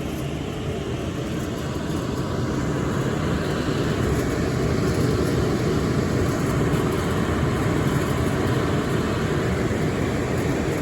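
Amana 90% furnace's blower fan running with a steady rushing of air, slowly getting louder.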